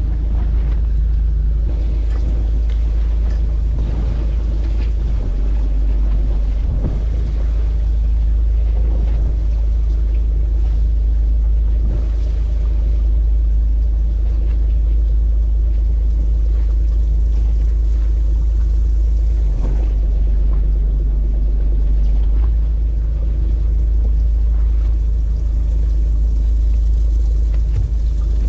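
Fishing boat's engine running steadily at idle, a continuous low rumble with a steady hum on top, while the boat holds position.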